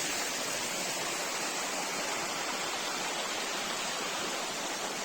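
A small creek waterfall pouring over its rock tiers: a steady rushing hiss of falling water.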